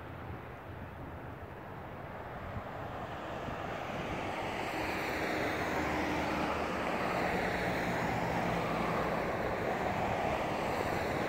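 Cars and a pickup truck passing on the road, the traffic noise swelling over the first few seconds as the bunch of cars arrives and then staying steady.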